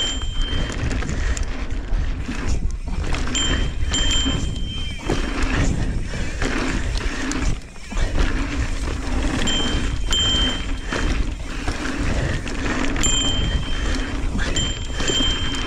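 Mountain bike riding over a dirt pump track, heard on the rider's own camera: wind buffeting the microphone and knobby tyres rumbling over packed dirt, rising and falling through the rollers. Short high whines come and go several times.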